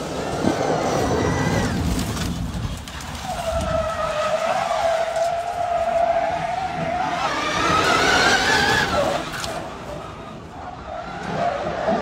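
Electric drive motor of a 2022 hybrid rally car whining as it runs under electric power, over tyre and road noise. The whine holds a steady pitch for a few seconds, then rises in pitch as the car speeds up and drops away about nine seconds in.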